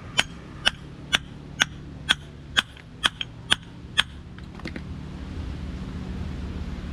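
Hammer blows on steel, about two a second and about ten in all, each with a short metallic ring, knocking the worn universal joint out of a truck's propeller shaft. The blows stop about four and a half seconds in, and a low engine rumble rises after them.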